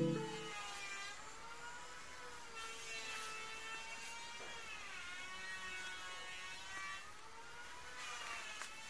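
A faint steady droning whine with several overtones, its pitch drifting slowly up and down, typical of a small engine running. The last of a piano intro tune dies away in the first half second.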